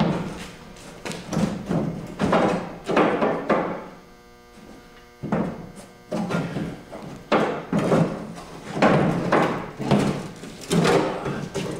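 Fiberglass stepside fender being worked loose from a rusted pickup bed: a string of irregular thumps, knocks and scrapes, with a short lull near the middle.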